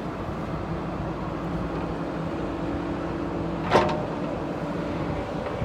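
JCB backhoe loader's diesel engine running steadily as it works. A single brief, sharp sound stands out over it about two-thirds of the way through.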